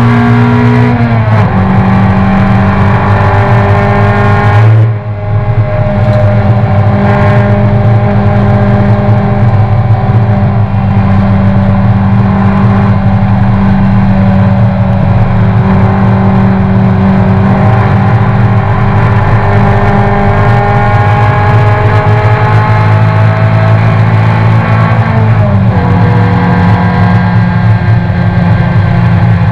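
Toyota race car's engine heard from inside the cockpit, running hard at high revs with the pitch slowly rising between gear changes. A shift drops the pitch about a second in, the engine briefly lifts off about five seconds in, and another upshift drops the pitch near the end.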